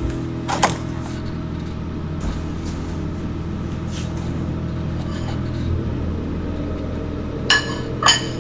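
Steady low hum made of several level tones, broken by a sharp click about half a second in and two short clattering knocks near the end.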